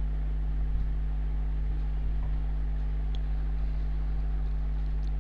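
A steady low hum with a few faint ticks of a wire whisk stirring flour batter in a glass bowl.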